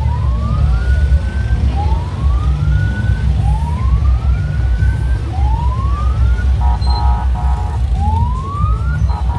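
Siren sounding a string of rising whoops, one about every one and a half seconds, over a loud, bass-heavy beat.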